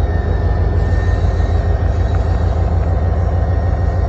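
EMD GP40-2 diesel-electric locomotive's turbocharged 16-cylinder engine running under load as it shoves its train at low speed: a loud, steady, low rumble.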